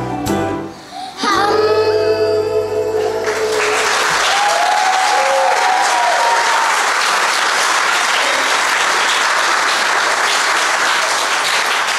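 A children's choir with instrumental accompaniment sings the held final notes of a song, which end about three seconds in. An audience then applauds steadily, with some brief cheering, through the rest.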